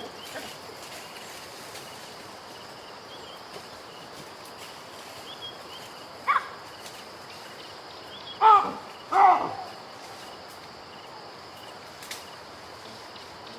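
Baboon calling: a short call about six seconds in, then two loud, pitched barks in quick succession a couple of seconds later. Underneath is steady outdoor ambience with a constant high drone.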